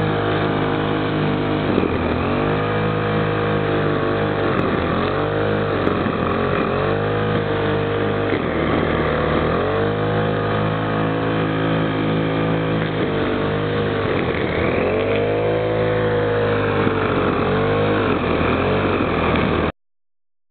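Wheeled brush cutter's small petrol engine running at high speed, its pitch dipping and recovering every couple of seconds as the spinning trimmer head cuts into long grass. The sound cuts off suddenly near the end.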